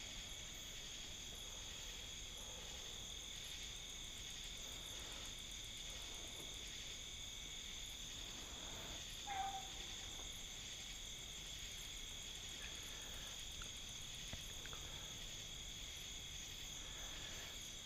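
Steady chorus of crickets and other night insects, a high, unbroken trilling. About nine seconds in comes a single short yelp from a hound, a beagle opening on a rabbit's track.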